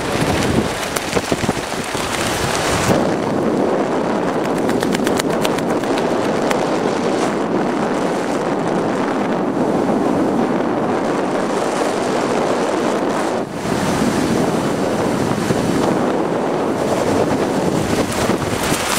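Heavy, steady wind rushing over a skydiver's helmet-mounted camera microphone, a continuous roar of air with a brief lull about two-thirds of the way through.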